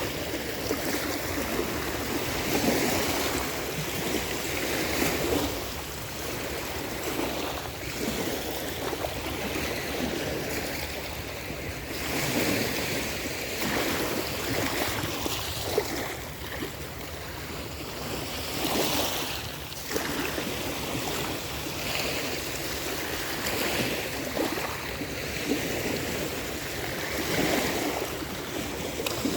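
Black Sea surf breaking and washing on a beach, a steady rush of water that swells and eases every few seconds.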